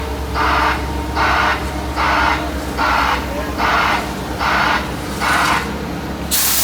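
A construction vehicle's backup alarm pulsing at an even rate of a little over one pulse a second, each pulse a short buzzy hiss rather than a clean beep, over a diesel engine running. Near the end a loud burst of hissing air cuts in.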